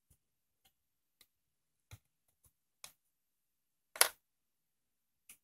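Scattered light taps and clicks of fingers and a small tool on a plastic cutting mat while handling soft clay discs, with one sharper knock about four seconds in.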